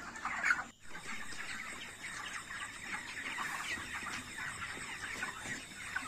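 A large flock of 33-day-old broiler chickens clucking and chirping, many birds calling over one another in a dense, steady chatter. The sound drops out abruptly for a moment under a second in.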